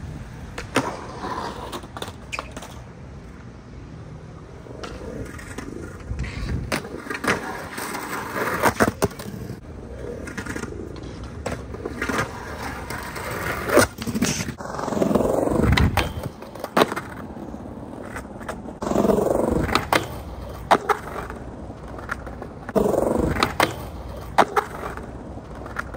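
Skateboards rolling on concrete, with sharp clacks of boards popping and landing and several longer grinding scrapes of decks boardsliding along a concrete curb and a rail.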